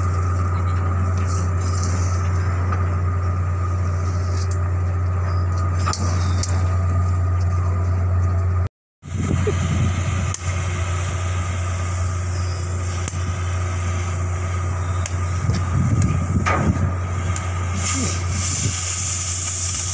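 Steady low drone of running machinery, with a few faint clicks and knocks over it; the sound cuts out completely for a moment about nine seconds in.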